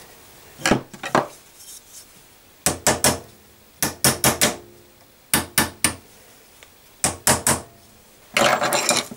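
A hammer tapping a dust cap down onto the pivot of a rear suspension arm. It comes as short runs of two to four quick knocks, repeated about every second and a half, with a longer, denser run near the end.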